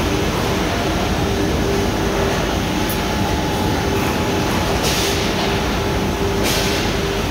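Steady mechanical hum of a robotic carton-palletizing cell running: an ABB robot arm and roller conveyors, with a faint steady tone. Two short bursts of air hiss, about five and six and a half seconds in, come from the gripper's pneumatics as it handles the boxes.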